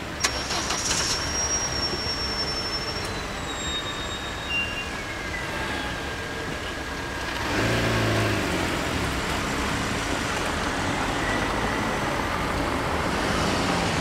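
Road traffic moving off over the level crossing: a knock and brief clatter just after the start as the barriers lift, then cars driving across, one engine passing close about eight seconds in. A faint high whine slides down in pitch during the first few seconds.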